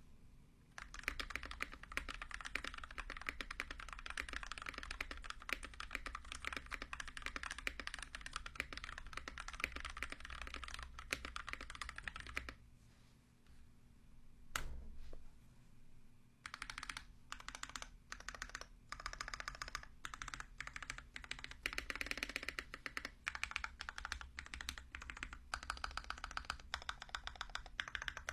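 Mechanical keyboard with Holy Panda tactile switches being typed on fast, a dense run of keystrokes. The typing stops about twelve seconds in, a single keystroke sounds in the pause, and it picks up again in bursts a few seconds later.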